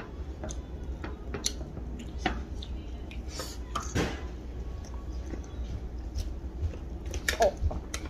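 Close-miked eating sounds: chewing, lip smacks and small mouth clicks as a big steamed pork momo and rice pulao are eaten. There are a couple of short falling squeaks near the end.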